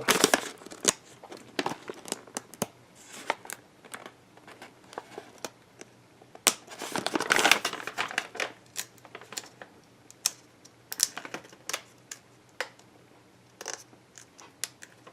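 Plastic snack wrapper crinkling and crackling as it is opened and handled, in scattered sharp clicks with a busier stretch about seven seconds in.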